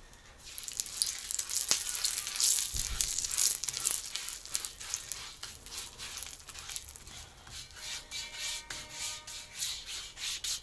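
Vegetable oil sizzling and crackling in a hot new cast-iron kazan as it is spread around the inside, starting about half a second in. This is the oil being baked on to season the pot.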